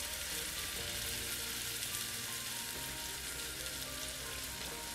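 Minced garlic, ginger and chili flakes in sesame oil sizzling steadily in a hot non-stick pan as water is poured in.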